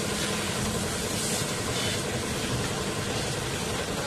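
Pressure washer running, with a steady hiss of water spray over a low machine hum.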